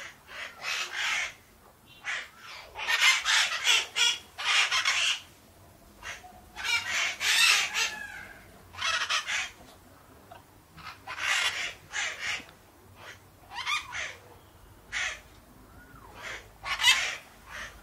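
Parakeets calling: clusters of short, harsh, rasping chirps and squawks separated by pauses of a second or so, with a few thin, gliding whistled notes among them.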